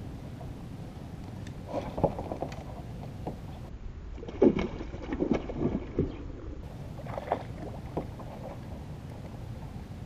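Hooked largemouth bass thrashing at the water's surface beside a kayak as it is fought and landed: irregular short splashes and knocks, busiest in the middle, over a steady low rush of wind and water.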